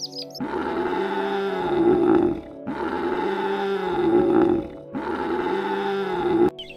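Three long, low calls from a large animal, each about two seconds long and rising then falling in pitch, with short gaps between them.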